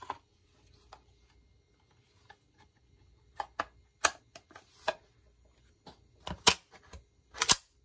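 Clicks and knocks of an Intratec Tec-9 pistol's upper receiver as it is slid onto and seated on its lower. There are a few faint taps first, then scattered sharp clicks from about three seconds in, and the loudest two knocks come near the end.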